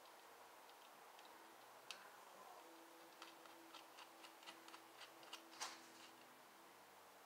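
Faint, irregular small clicks and taps of hand tools working on a motorcycle, with a sharper click about two-thirds of the way through, over a faint steady low hum.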